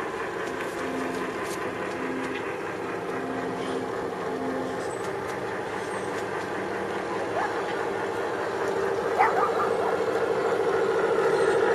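Recorded diesel engine sound from the Dallee sound units in three G-scale model diesel locomotives, played through their small onboard speakers. The engine sound runs steadily and grows louder as the train draws nearer.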